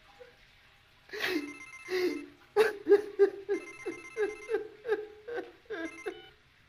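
Mobile phone ringtone: a run of quick electronic notes, about three a second, starting about a second in.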